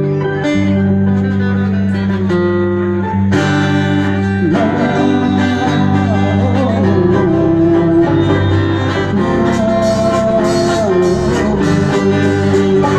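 Guitar-led music with plucked strings, filling out with more instruments about three seconds in.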